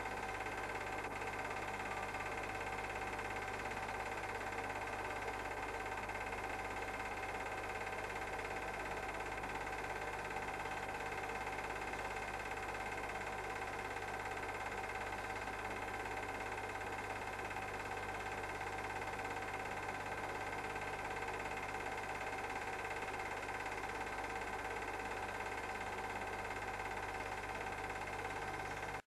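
Steady whirring hum of a cine film projector running, with several constant tones and no change in pitch or level.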